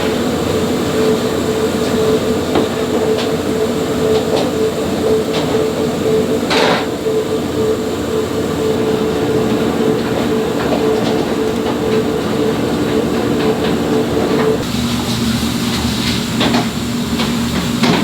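Kkultteok-making machine running with a steady hum and light clatter; the higher part of its hum stops about three-quarters of the way in.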